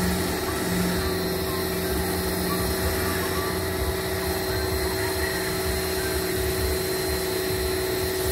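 A motor running steadily: a constant hum with a thin high whine held above it.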